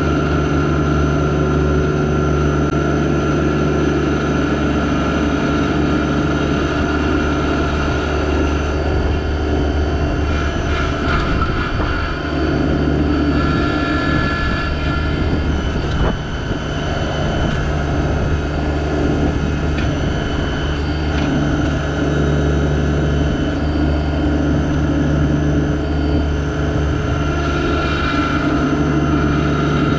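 Yanmar SA324 compact tractor's three-cylinder diesel engine running steadily at working speed, with a few brief dips in level.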